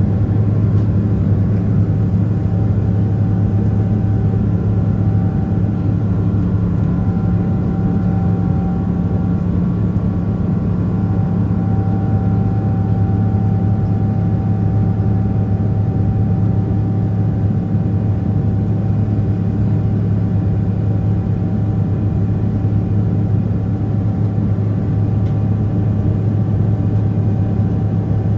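Boeing 777-300ER cabin noise during takeoff: the GE90 engines running steadily under power, a deep even drone with a low hum and a few faint steady whining tones over airflow noise.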